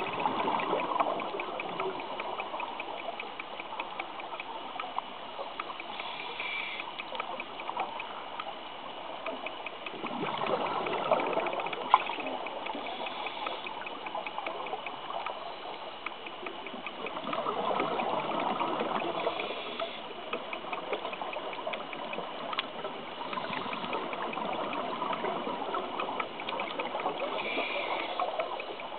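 Scuba breathing underwater through a regulator: exhaled bubbles rise in bubbling swells a few seconds long, several times over. Between them there is a faint steady ticking.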